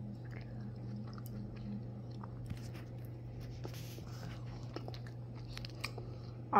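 A person chewing grapes with the mouth close to the microphone: soft, scattered wet clicks and squishes over a steady low hum.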